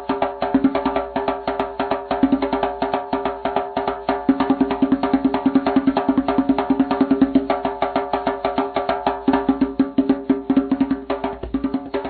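Drums played in a fast, continuous pattern, many strikes a second, with a steady pitched ring under the hits.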